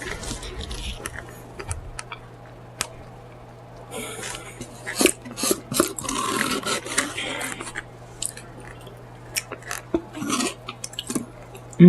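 Close-miked chewing of a mouthful of food, with many short wet clicks and smacks and a denser stretch of crunching about four to seven seconds in.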